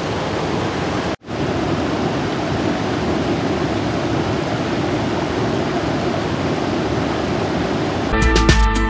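Steady rush of a rocky river's rapids, broken by a brief gap about a second in. Music comes in near the end.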